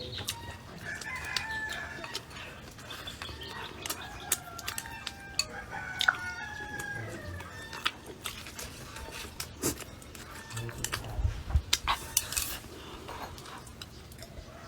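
Rooster crowing and chickens clucking, with sharp clicks and knocks scattered throughout and a few low thumps near the end.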